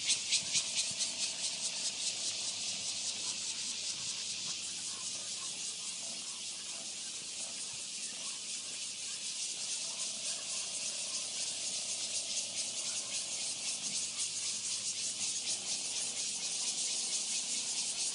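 Insects, such as cicadas, buzzing in the roadside trees as a steady, high, rapidly pulsing hiss. It eases a little midway and swells again toward the end.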